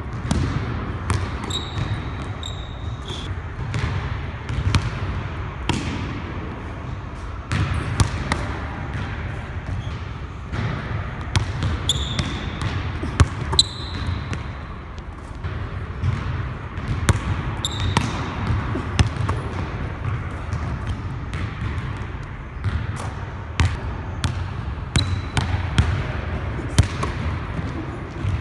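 Basketball being dribbled and shot on a hardwood gym court: many sharp knocks from the ball's bounces, with a few short high squeals from sneakers on the wood.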